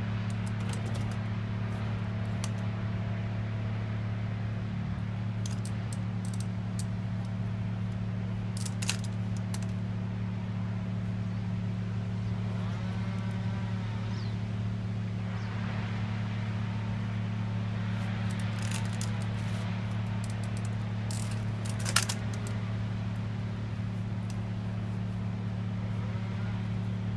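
A steady low mechanical hum, like an idling engine or running machine, with scattered light clicks and one sharp tap about 22 seconds in.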